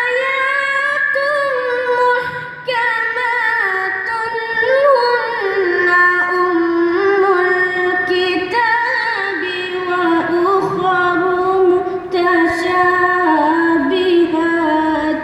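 Young reciter's high voice chanting the Quran in melodic tarannum style, drawing out long ornamented notes. There is a short breath break about two and a half seconds in, and the phrase ends near the end.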